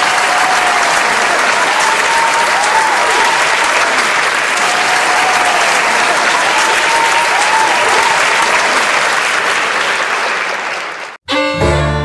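Crowd applauding, a steady mass of clapping that cuts off abruptly near the end, followed at once by music starting.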